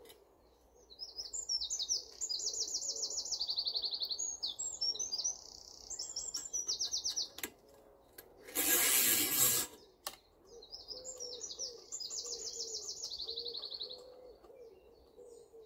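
A songbird singing high, fast trilled phrases a few seconds long, three times over. About halfway through there is a louder burst of hissing noise lasting about a second.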